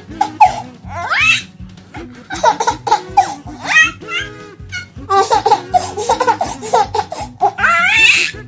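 Baby laughing in several bursts, with high rising squeals, over background music.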